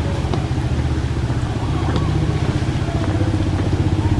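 A small engine idling steadily, a low even hum with a fast regular pulse.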